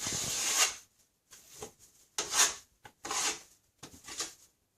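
Drywall knife scraping across the ceiling patch in about four short strokes, the first the longest and loudest.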